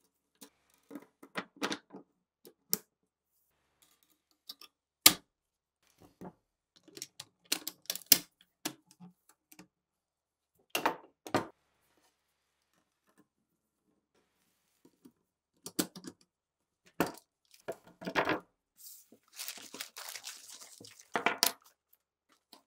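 Steel gun parts being handled and fitted together on a wooden bench during reassembly of a machine gun: scattered metallic clicks, clacks and knocks in short clusters, the sharpest knock about five seconds in. A longer scraping rustle runs near the end.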